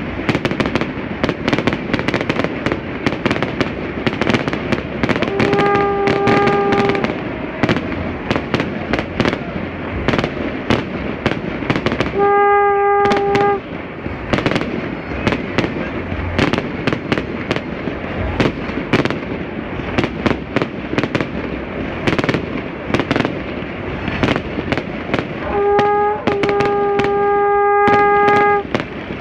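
Low-altitude fireworks display going off in rapid succession, a dense stream of powerful reports between city buildings. A steady horn-like tone sounds over it three times, about six, twelve and twenty-six seconds in, the last for about three seconds.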